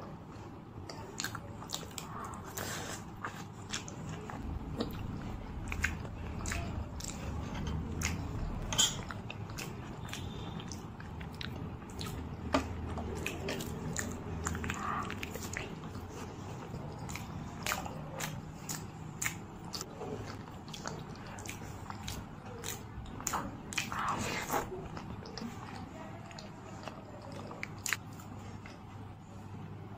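Close-miked chewing and biting of puri scooped with ghugni (yellow pea curry): a dense run of small sharp mouth clicks and wet smacks.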